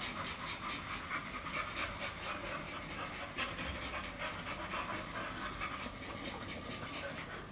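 Adult pit bull panting in quick, even breaths.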